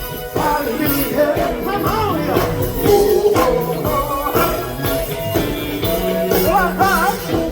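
Live funk band playing, with a steady bass line under a wavering sung melody line.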